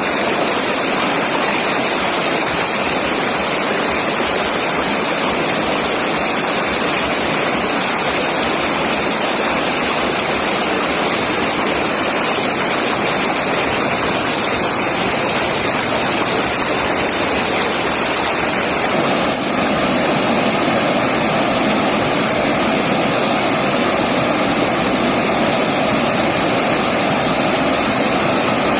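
River water rushing steadily, a dense even hiss with no breaks, getting slightly louder and fuller about two-thirds of the way through.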